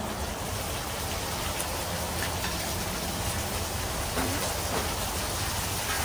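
Chicken pieces sizzling in hot oil on a Blackstone flat-top griddle, a steady frying hiss that starts as they are tipped onto it.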